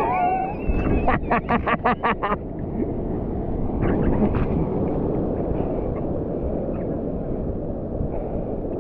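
Surf and wind rushing on an action camera's microphone. In the first half-second a short wavering call sounds, then comes a fast run of about eight sharp notes, roughly six a second, ending a little over two seconds in.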